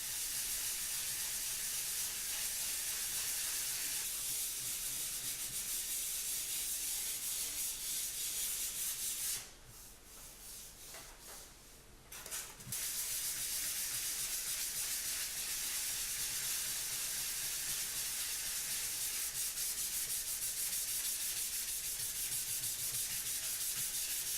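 Sandpaper rubbing over a dried ready-mix plaster patch on a plasterboard wall, worked in circular motions to smooth the filler before painting. It gives a steady rasping hiss that pauses for about three seconds midway, then carries on.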